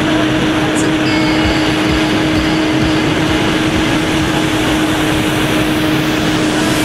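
Suzuki GSX-R sport bike's inline-four engine held at steady high revs at about 200 km/h, its note not rising or falling, under heavy wind rush.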